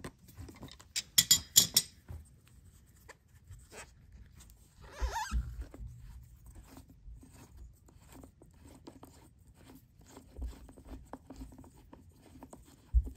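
Plastic water-in-fuel sensor being unscrewed from the bottom of a removed Duramax diesel fuel filter. A burst of sharp clicks comes in the first two seconds while channel locks grip it, and a short scrape about five seconds in. After that there is a faint run of small ticks as the plastic threads are turned by hand.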